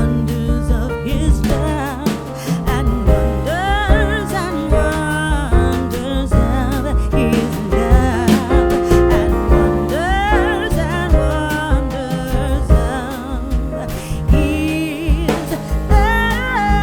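Background music with a singing voice or sung melody over a steady beat.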